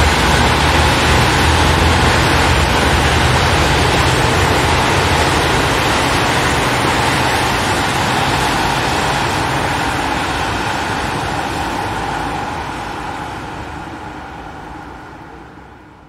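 Road traffic noise: a steady wash of vehicle engines and tyres, fading out over the last few seconds.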